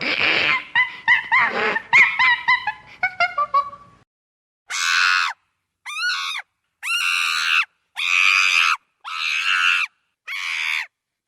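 Animal calls: for about four seconds, a quick run of short, overlapping high-pitched cries, then six separate, shrill calls about a second apart.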